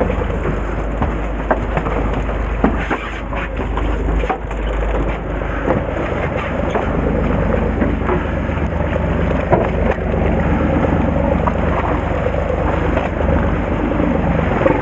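Fishing boat's engine running steadily under wind and sea noise, with scattered small clicks and knocks.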